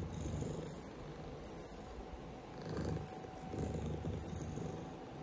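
Domestic cat purring, the rumble swelling and fading with each breath. Four or five very brief high-pitched chirps come through at intervals.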